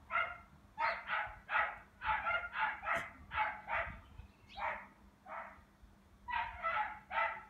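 A dog barking repeatedly, about two to three barks a second, with a short lull around five seconds in.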